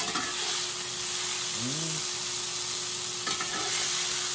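Sliced deer heart sizzling in a hot cast iron skillet, with a metal utensil scraping and stirring the pieces in the pan at the start and again about three seconds in.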